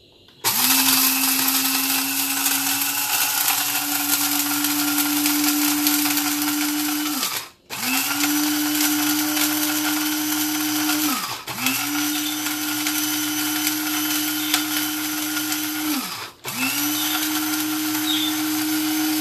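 Electric spice grinder running in four pulses of a few seconds each, grinding roasted whole spices (coriander, cumin, fennel, cardamom, dried red chillies) into dry garam masala powder. Each pulse starts with the motor's hum climbing a little as it spins up, then it cuts off briefly before the next.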